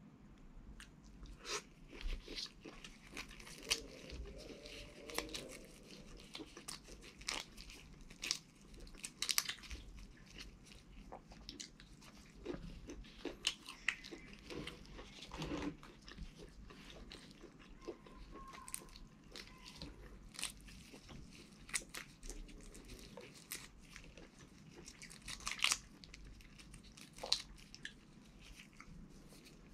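Close-up eating sounds of boiled shrimp: irregular cracks and crackles as the shells are pulled apart by gloved hands, mixed with biting and chewing.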